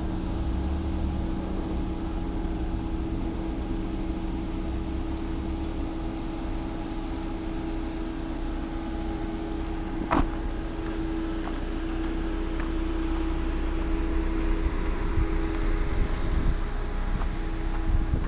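SUV driving slowly over a rocky dirt trail: a steady engine and fan hum, with one sharp knock about ten seconds in and small knocks from the rocks toward the end.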